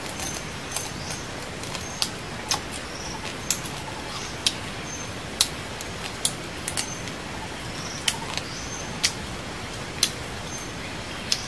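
Sharp, irregular clicks, about one a second, over a steady background hiss, with short high chirps repeating between them.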